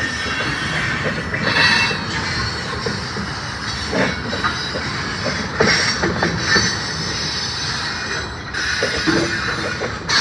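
Freight train of lumber-loaded centerbeam flatcars rolling slowly past, with the steady rumble of the cars, wheels squealing and screeching on and off, and a few metallic clanks from the wheels and couplers.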